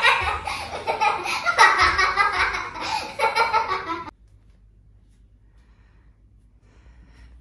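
People laughing hard, a child among them, for about four seconds; the laughter cuts off abruptly, leaving a quiet room.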